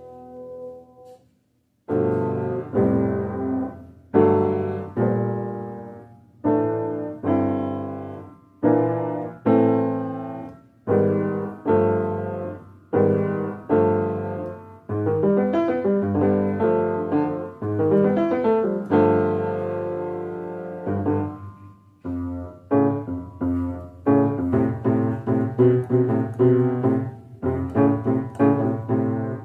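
Solo piano music. A phrase fades out and there is a brief silence, then struck piano chords ring and decay about once a second, growing busier near the end.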